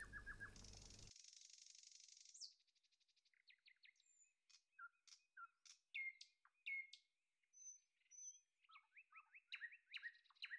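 Faint birdsong: scattered short chirps and quick falling whistles with a few thin high notes, becoming a quicker run of chirps near the end.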